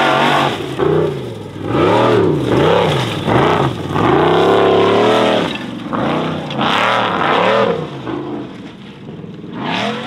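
Formula offroad buggy engine revving hard in quick repeated throttle bursts, its pitch rising and falling with each one, as the car climbs the dirt track. About four seconds in it holds one longer, sustained rev, and it eases off somewhat near the end.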